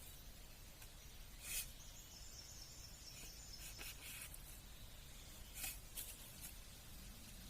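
Faint outdoor ambience with a high steady insect buzz lasting about two seconds, and a few short rustling clicks, the loudest about a second and a half in.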